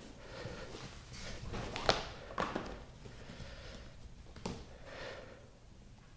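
Hands pulling and knotting polyester rope lacing through a trampoline's metal grommets: soft rubbing and swishing of rope, with two sharp clicks, the louder about two seconds in and another about four and a half seconds in.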